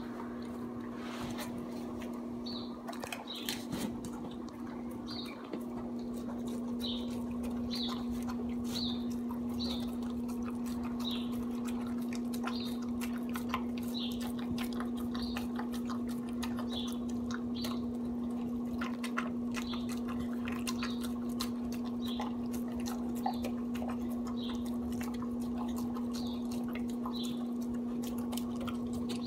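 Dog eating soft raw food from a stainless steel bowl: faint wet chewing, licking and clicking. Over it runs a steady low electrical hum, and short high chirps recur about once a second.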